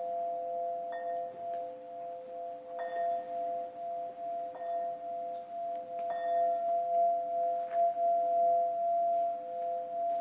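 Crystal harp: glass rods struck with mallets about five times, every one and a half to two seconds, each strike ringing out bright and fading over two long, steady, held tones.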